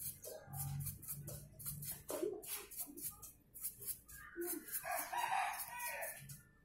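Liquid splashing and sloshing as a hand scrubs bicycle parts in a tin of cleaning fluid, with an animal call about four seconds in that lasts around two seconds and is the loudest sound.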